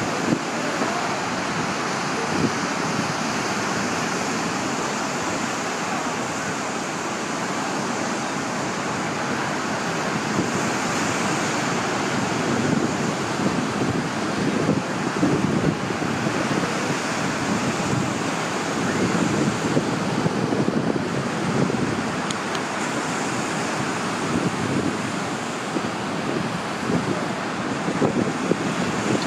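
Lake surf breaking and washing steadily on the shore, with wind buffeting the microphone in irregular gusts.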